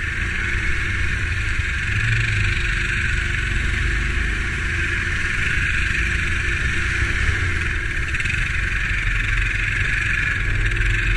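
Quad bike (ATV) engine running steadily at low trail speed, picked up by a camera on the riding machine, with a constant hiss and low rumble.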